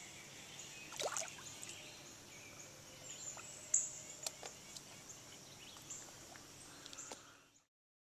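Quiet outdoor background noise: a steady high hiss with a few scattered sharp clicks, fading out near the end.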